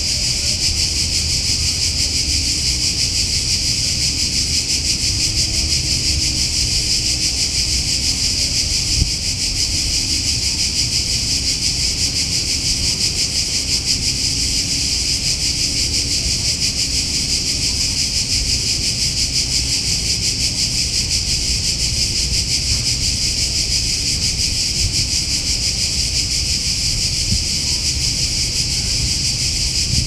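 Cicadas singing in a steady, unbroken high-pitched chorus, with a low rumble underneath.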